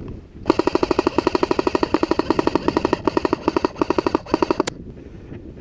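Cyma CM.040C AK-style airsoft electric rifle firing full-auto: a rapid, even buzzing rattle of the gearbox cycling, held for about four seconds with a couple of brief breaks, then stopping abruptly.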